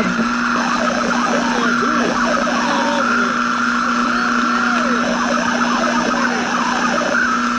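Old AM radio static: a steady hiss and a low hum, with many short warbling whistles that rise and fall in pitch, and a wavering higher tone.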